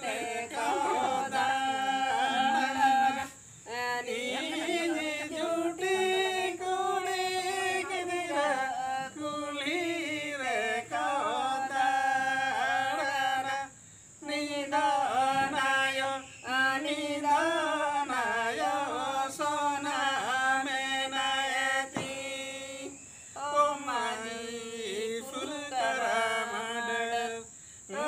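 A small group of voices singing a Santali Sohrai song (sereng) together without instruments. The song moves in phrases of long held notes and sliding pitches, with short breaks for breath between them.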